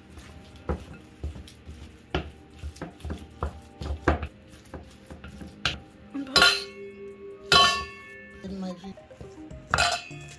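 Spatula knocking and scraping against a glass mixing bowl while stirring sticky almond-flour dough, irregularly about twice a second. This is followed by a few louder clinks that leave the bowl ringing.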